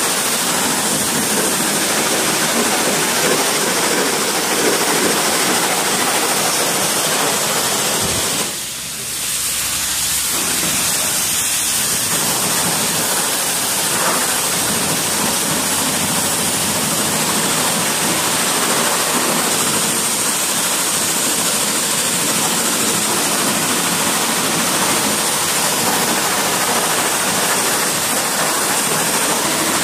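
Pressure washer jet spraying water onto an RC car's plastic body and roll cage: a steady, loud hiss of spray that dips briefly about eight and a half seconds in.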